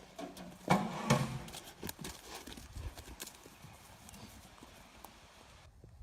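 Hooves clopping on a hard surface in an irregular run of sharp knocks, loudest about a second in and fading after; near the end the sound cuts to a quieter background.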